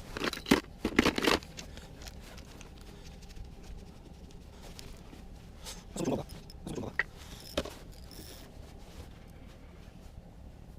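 Scraping and rustling of gear being handled, in a quick cluster of sharp scrapes and clicks at the start and a second, lighter cluster about six to seven and a half seconds in.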